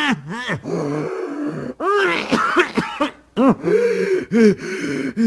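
A sick man coughing and wheezing in fits, his voice breaking into groans, with a short pause a little past three seconds.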